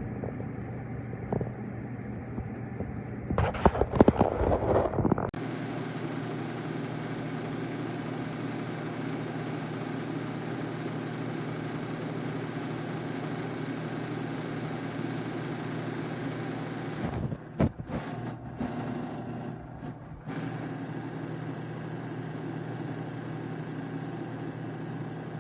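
Evaporative console humidifier's fan running with a steady whir and low hum. A few knocks and handling noises come in the first few seconds, and a brief disturbance about 17 to 20 seconds in.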